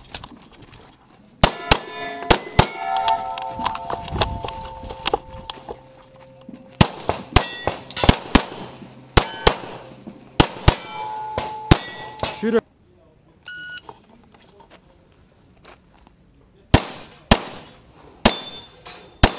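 Pistol fire from a CZ 75 SP-01 Shadow in fast strings of shots, with steel targets ringing after hits. There is a pause of about four seconds in the middle, then another string of shots near the end.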